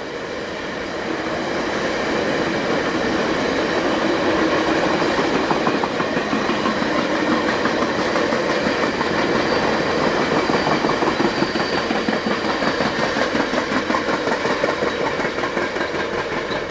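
Stainless-steel passenger cars of VIA Rail's Canadian train rolling past, the wheels clicking in a steady rhythm over the rail joints. The sound swells over the first few seconds and then stays loud.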